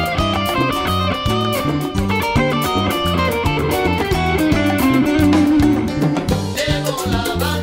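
Salsa music with a repeating bass pattern and plucked guitar-like lines.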